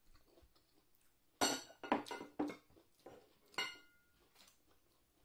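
Dishes clinking: several sharp knocks of tableware between about one and a half and four seconds in, the last one ringing briefly.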